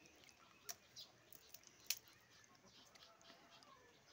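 Near silence with faint bird chirps and two sharp clicks a little over a second apart.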